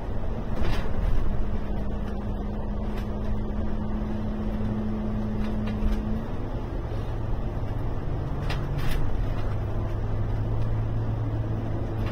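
Alexander Dennis Enviro 500 MMC double-decker bus cruising at speed, heard from inside the upper deck: a steady engine, drivetrain and road rumble with a hum that shifts lower about six seconds in, and a couple of brief rattles.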